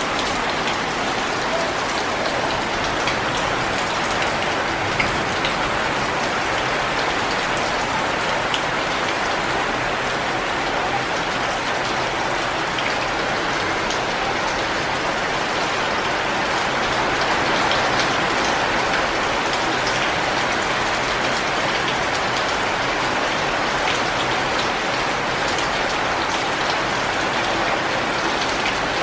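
Heavy rain falling steadily onto a flooded concrete floor, a dense even hiss of drops splashing into the standing water, with scattered sharper single drop hits.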